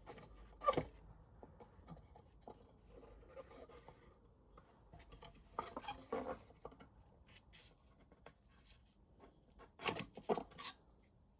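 Light clicks, taps and short scratching sounds of wooden pinch sticks and marking tools being handled against a wooden box, coming in three small clusters: about a second in, around six seconds in, and near ten seconds in.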